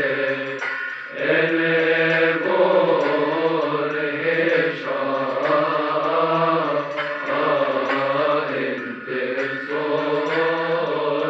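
Male cantor chanting a Coptic praise hymn in a long melismatic line: drawn-out notes that slide up and down, with short breaks between phrases.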